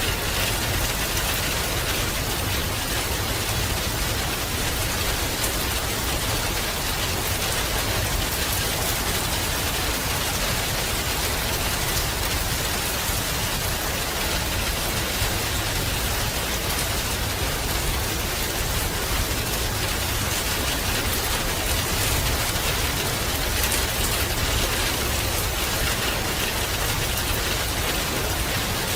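Steady rain falling, an even hiss of drops on surfaces with a low rumble underneath.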